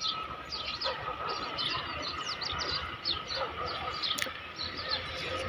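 Many small birds chirping together: a dense chorus of short, high calls.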